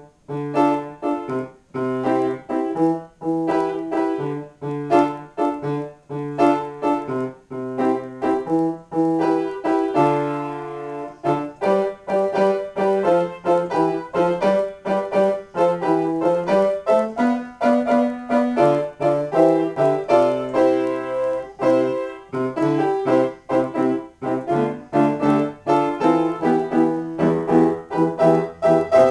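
Grand piano played solo in an improvisation: chords over a moving bass line, with many struck notes in quick succession. The playing begins suddenly out of silence at the start.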